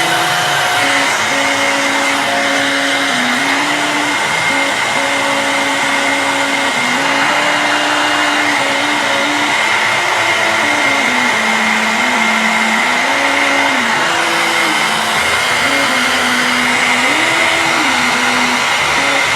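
A power tool's motor running steadily, its hum wandering up and down in pitch, with a high whine over it.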